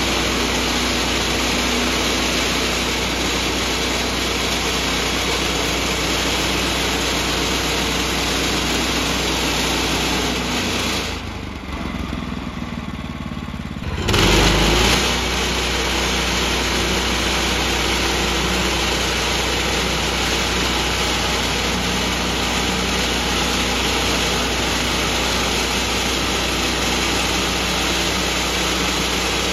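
Woodland Mills HM126 portable band sawmill running on its gas engine, the band blade cutting through a log, a loud steady whine and drone. About eleven seconds in the sound falls away for a few seconds, then comes back with a brief louder surge and runs steadily on.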